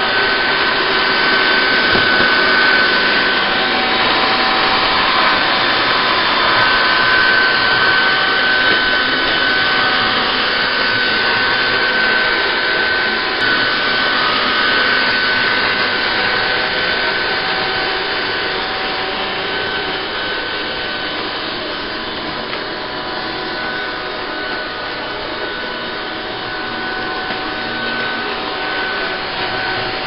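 Topan TP-AVC701/702 robot vacuum cleaner running: a steady whirring of its fan and brushes with a high whine in it.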